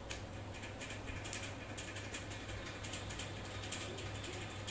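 Two African grey parrots feeding from a galvanised metal tray, their beaks picking and crunching at chopped fruit and vegetables: quick, irregular small clicks and ticks, several a second, over a steady low hum.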